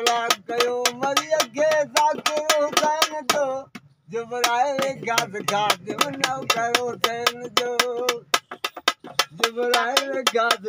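Sindhi Sufi devotional music: a melody line, with no words heard, over a fast, even clicking beat of about four or five clicks a second. The melody breaks off briefly about four seconds in, and again for a moment near the end while the clicks carry on.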